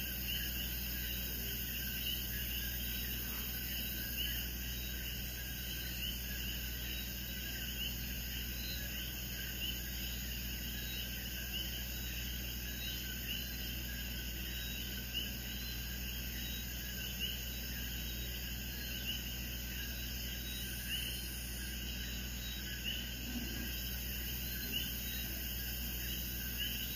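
Quiet room tone: a steady low hum under a faint, continuous chorus of small, high, repeated chirps from calling night creatures, with a few soft light taps.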